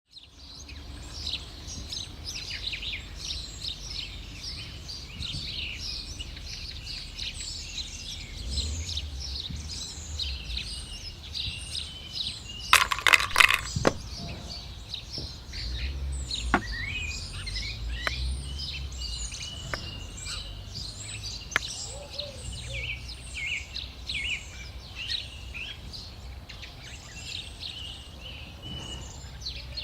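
Dense chorus of small birds chirping continuously over a low rumble. About halfway through there is a loud, short rattle of sharp clicks, the loudest sound here, and a few single sharp clicks follow later.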